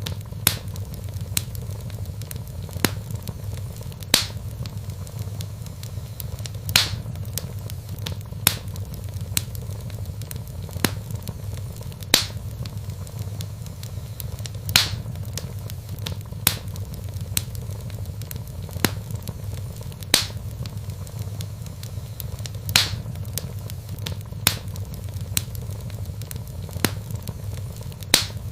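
Wood fire burning in a fireplace: a steady low rumble with sharp crackles and pops about every second or so.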